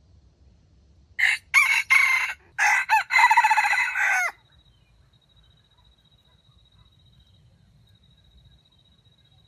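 A rooster crows once, loud, in several broken parts lasting about three seconds, starting about a second in and ending sharply.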